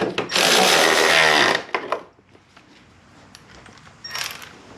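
A handheld power driver runs a headlight mounting bolt in for about a second and a half, then stops. A shorter burst follows near the end. The bolts are only being run in, not tightened.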